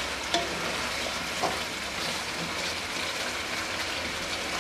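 Chicken curry sizzling and bubbling in a non-stick karahi over high heat while a spatula stirs it, the liquid cooking off. Two light knocks of the spatula against the pan, about a third of a second and about a second and a half in.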